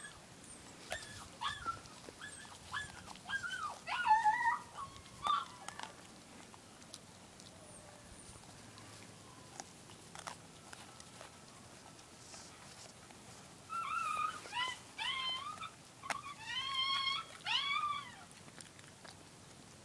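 Sled dog whining in high-pitched, wavering cries: a cluster of short whines in the first few seconds, then longer whines that rise and fall near the end. A few sharp crunches fall between them.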